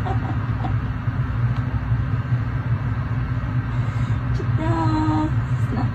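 Electric fan running with a steady low hum and airy noise. A short voiced hum is heard about five seconds in.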